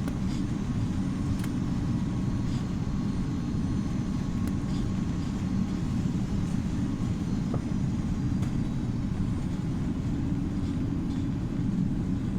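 Steady low rumble of an Airbus A330-300 airliner cabin, with engine and airflow noise and a few faint clicks.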